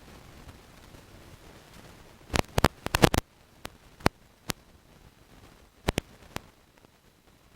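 Faulty audio connection: irregular sharp pops and crackles over a low hiss, with a cluster of them about two to three seconds in and single pops after that. The uploader suspects a jack partially pulled out of its socket.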